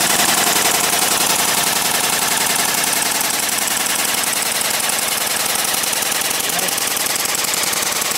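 Airsoft guns firing on full auto: a continuous, very rapid rattle of shots that goes on without a break.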